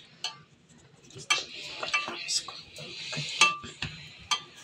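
Kitchen clatter: scattered light clinks and knocks, with a hissing rush from about a second in until past the middle.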